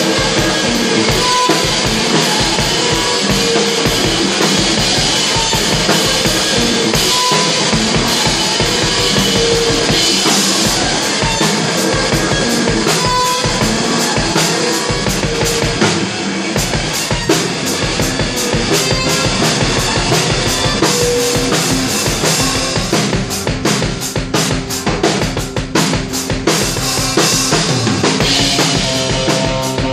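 Live band music: a drum kit keeps a steady, driving beat under amplified electric guitar, with held notes coming in near the end.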